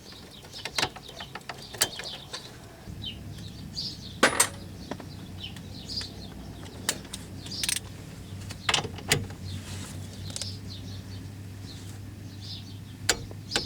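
Scattered sharp metallic clinks of hand tools and hub parts being handled, with birds chirping in the background. A low steady hum comes in about three seconds in.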